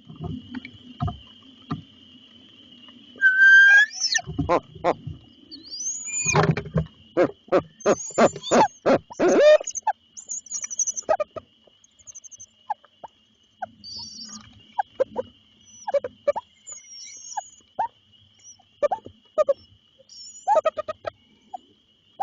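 Owls calling at the nest: a string of short squeaky, whistled calls and chitters, some rising in pitch, loudest about four seconds in and again from about six to ten seconds in. A steady high-pitched hum runs underneath.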